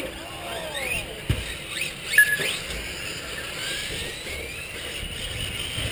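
Motors of radio-controlled 4wd short-course trucks whining on the track, their pitch rising and falling as they speed up, slow for corners and pass by, with one long slow rise in the middle.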